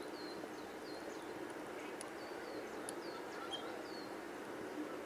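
Small songbirds calling: a string of short, high chirps, several falling in pitch, repeated every half second or so over a steady background hiss.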